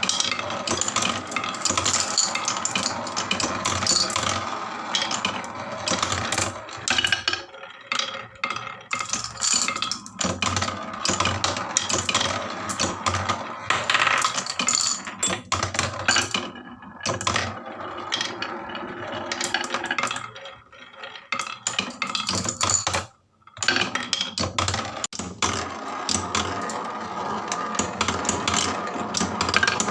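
Many marbles rolling and clattering down a HABA wooden marble run: a dense stream of clicks and rattles, with a brief pause about 23 seconds in.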